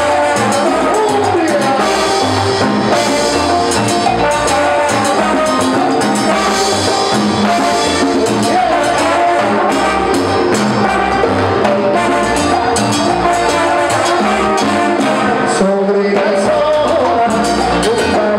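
Salsa music played by a band with brass and percussion, with a steady beat.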